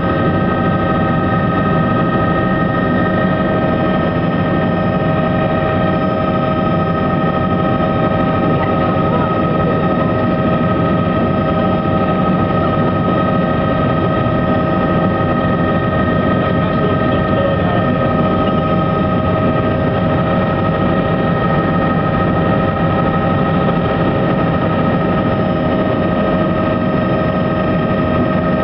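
Helicopter in flight heard from inside the cabin: loud, steady engine and rotor noise with several constant whining tones over it, unchanging throughout.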